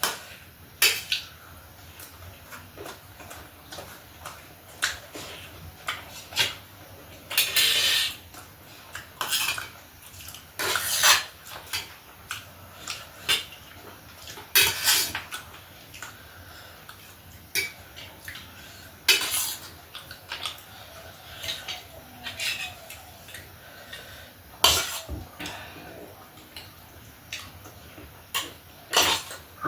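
Cutlery clinking and scraping against a plate while eating, in irregular clicks and short strokes, a few of them louder.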